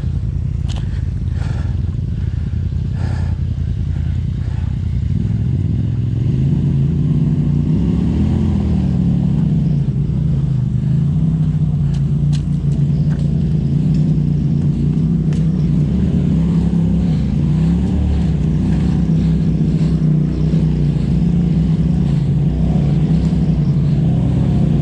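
Polaris RZR side-by-side's engine running at low revs, getting louder and steadier about six seconds in and wavering slightly as it creeps along under tow-strap load. A few light clicks and knocks in the first seconds.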